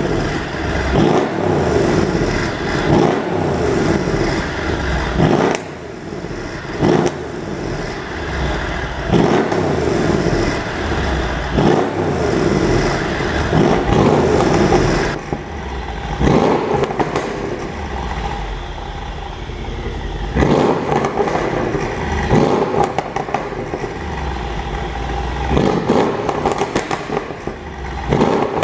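Mercedes-AMG CLS63 4Matic (W218) with its 5.5-litre twin-turbo V8 revved again and again. Sharp exhaust pops and crackles follow as the revs drop, from a pop-and-bang exhaust tune.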